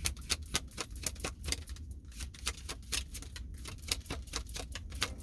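A tarot deck being shuffled by hand: a quick, uneven run of light card clicks and slaps.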